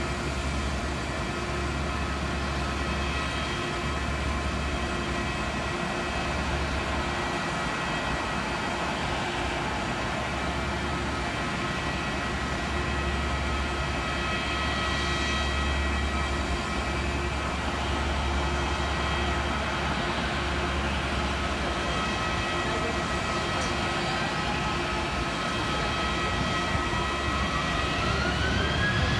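Jet airliner engines running with a steady rumble and a whine of several held tones. In the last few seconds the whine rises in pitch and grows louder as the engines spool up.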